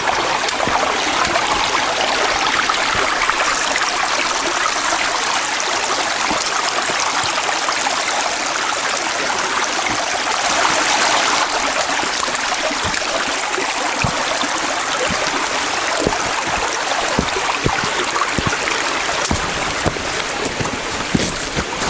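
A stream running steadily, an even wash of flowing water, with a few light knocks in the last several seconds.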